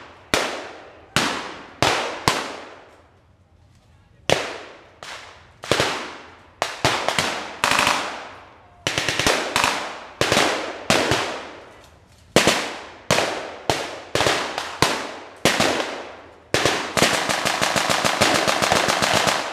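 Blank gunfire, including a submachine gun: single shots and short bursts, each echoing and dying away over about a second. Near the end comes one long, rapid continuous burst lasting about three seconds.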